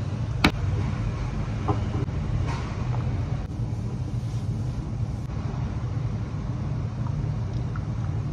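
Steady low hum with a sharp click about half a second in and a few light knocks from things handled and wiped on a kitchen counter.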